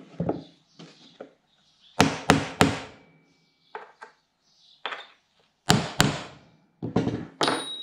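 Hammer striking a chisel held against a rusted seat bolt in a plywood boat floor board: sharp blows in quick groups of two or three, a couple of them leaving a brief metallic ring.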